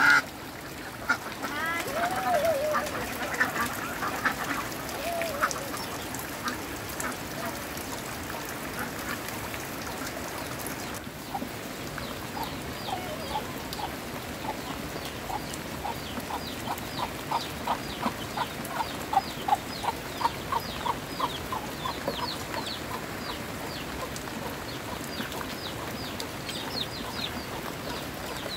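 A flock of domestic ducks calling. Quacks in the first few seconds give way, near the middle, to a long run of short calls at about two to three a second.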